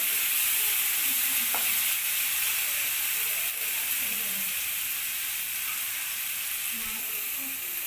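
Onion and spice masala sizzling steadily in hot oil in a non-stick kadai as it is fried down for chicken kasa. The sizzle eases slightly toward the end.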